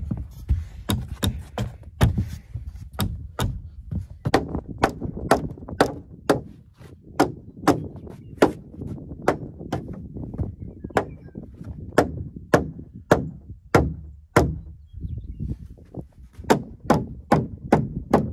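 Hammer blows on a wooden stud-wall frame, about two strikes a second, with a short break about three-quarters of the way through. The hammer is knocking the framed wall over a hair to seat it in its cavity.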